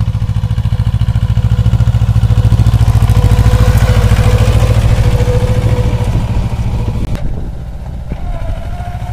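Mahindra Jivo 245 DI tractor's two-cylinder diesel engine chugging under load as it pulls a reversible plough through soil. The fast, even beat is loudest in the middle and drops suddenly to a quieter, more distant sound about seven seconds in.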